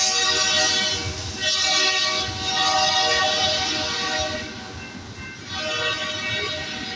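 A freight locomotive's horn sounding a chord in long blasts, with short breaks and a pause about four and a half seconds in before it sounds again, over the low rumble of the passing freight cars.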